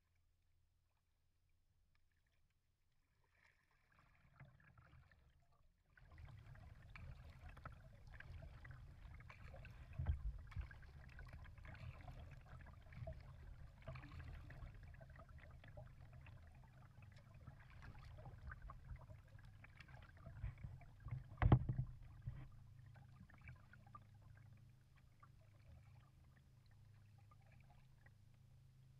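Water lapping and trickling against an Old Town kayak's hull as it glides, with small knocks on the hull and two louder knocks, one about a third of the way in and one about three quarters through. The first few seconds are near silence.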